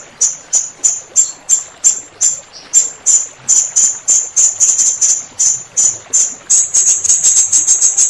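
Blue-crowned hanging parrot (serindit) calling: a rapid series of sharp, shrill, very high notes, about three or four a second, quickening into a denser run about six and a half seconds in.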